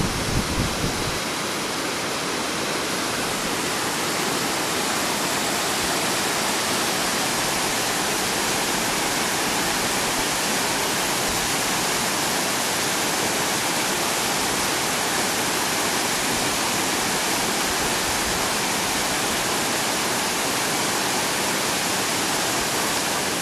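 Waterfall pouring steadily, a constant rush of falling water with no change in level.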